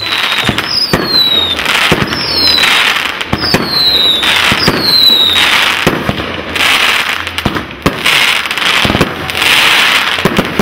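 Aerial fireworks display: a rapid series of shell bursts banging, over a dense crackle. Four short high whistles fall in pitch in the first half.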